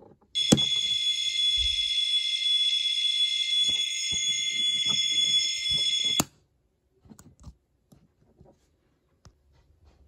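Capsule-toy replica of a Nohmi Bosai fire alarm call point sounding its fire alarm. The button is pressed with a click, a steady high ringing alarm plays for about six seconds, then it cuts off suddenly with a click as the reset switch is pressed. Light plastic clicks and handling follow.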